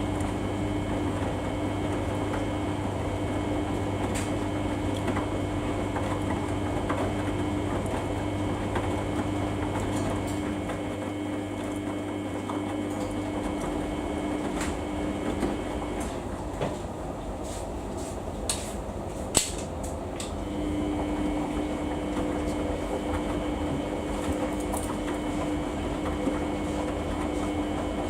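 Samsung washing machine on its Daily 40 wash, the drum motor whirring steadily as the load tumbles. About sixteen seconds in the motor stops, there are a few clicks, and after a few seconds it starts turning again.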